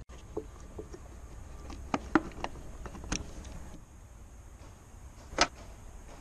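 Sharp plastic clicks and knocks from hands working a Chevrolet Spark's headlight bulb socket and its wiring. A few clicks come about two seconds in, another near three seconds and the loudest about five and a half seconds in, over a low steady rumble.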